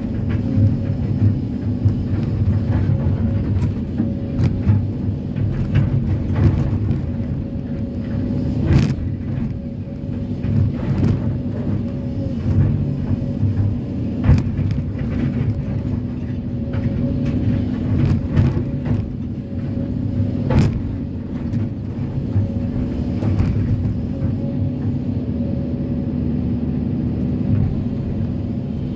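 Kobelco SK330-10 crawler excavator's diesel engine running steadily with a constant hydraulic hum, heard from the operator's cab. A few sharp knocks stand out, about nine, fourteen and twenty-one seconds in.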